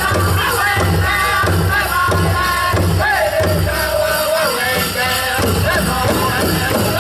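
Powwow drum group singing a prairie chicken dance contest song: several singers strike a large drum together in a steady beat under high-pitched group singing, with one long falling held note near the middle.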